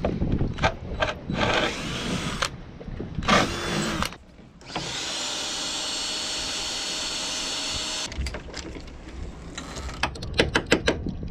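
Power drill boring a bit through old bolt holes in a fiberglass deck, opening them up to fresh, silicone-free fiberglass. The drill runs in two short bursts, then in one steady run of about three seconds in the middle. A few sharp clicks follow near the end.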